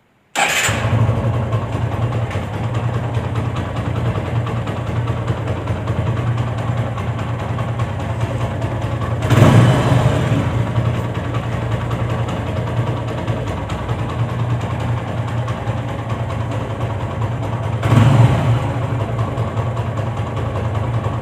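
TVS Apache motorcycle's single-cylinder four-stroke engine starting about half a second in and idling, blipped twice to a higher rev. The freshly home-rebuilt engine, with its clutch bearing replaced, runs without the abnormal noise it had before.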